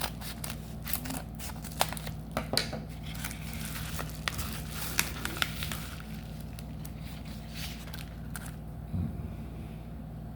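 Packaging crinkling and tearing as a mystery box is opened by hand: a run of sharp crackles and snaps over the first six seconds, then quieter handling with a soft thump near the end, over a steady low hum.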